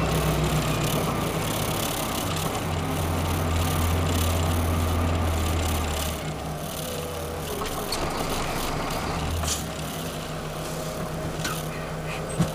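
Gravel truck's diesel engine running steadily on the move, a low drone that drops in level about halfway through.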